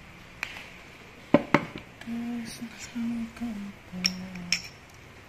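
Sharp clicks and knocks as the armature of a Makita DDF458 drill motor is worked out of its magnet housing, two loud ones about a second and a half in. From about two seconds in, a man hums a few low notes of a tune, with two more clicks near the end.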